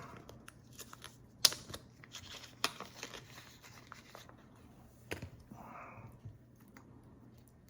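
Small tools and a padlock being handled at a bench: scattered light clicks and taps, the sharpest about a second and a half in, with a soft rustle a little after the middle.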